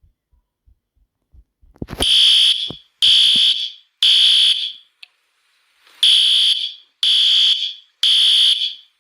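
Fire alarm sound effect: a loud, high-pitched electronic beep sounding in the temporal-three pattern, three beeps about a second apart, a pause, then three more. The first two seconds hold only faint low thuds, about three a second.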